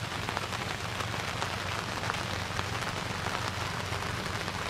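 Steady rain falling on the river and the boat, a dense patter of drops over a low steady hum.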